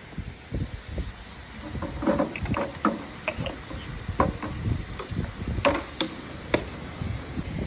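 Irregular clicks and knocks of tools and parts being handled during engine work, with a few sharper clicks in the second half.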